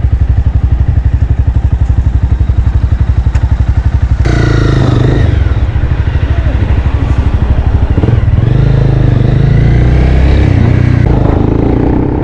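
Motorcycle engine running with a fast, even beat for about four seconds, then a sudden cut to a louder mix of a voice over traffic and engine noise.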